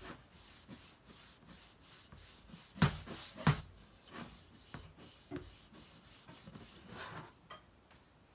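A cloth rag rubbing Minwax finishing paste wax onto a whitewashed wooden board, in repeated back-and-forth strokes. Two sharp knocks about three seconds in.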